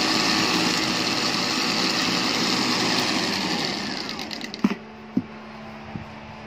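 Hi-Winch 9500STD 12-volt electric winch motor running as it spools its steel wire rope in. About four seconds in the motor stops and its whine falls in pitch as it spins down. Two sharp clicks follow.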